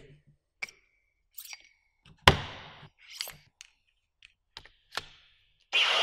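A series of sharp knocks and clacks of hard objects striking, about nine over six seconds, a few with a brief ring; the loudest, about two seconds in, trails off in a short rattle. Near the end a loud sustained hiss with a high steady tone starts.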